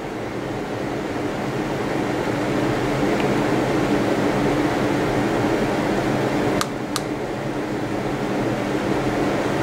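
Steady fan-like hum and hiss of background room noise. Two sharp clicks come close together about two-thirds of the way through.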